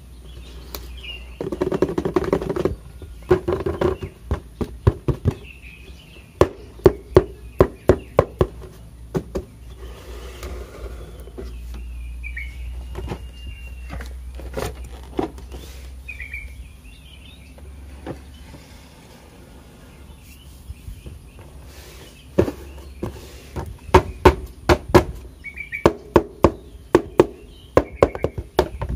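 Hands handling a cardboard box, with bursts of sharp taps and clicks and rustling in two spells, one early and one near the end. Short, high bird chirps sound now and then in the background.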